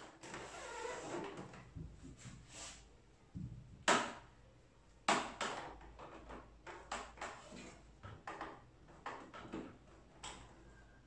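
Handling noise from a printer's power cord and plug being worked against the printer's plastic casing: a string of sharp plastic knocks and clicks with rustling between them, the loudest two about four and five seconds in.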